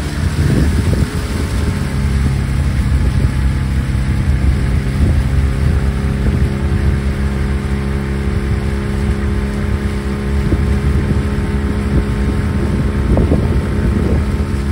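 Outboard motor of a small boat running steadily at a constant pitch, with wind buffeting the microphone in gusts.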